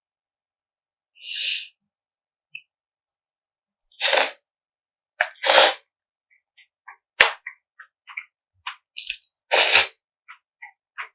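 Close-miked eating sounds of spicy mixed noodles: four short noisy slurps, with sharp clicks and small wet mouth and chewing sounds between them.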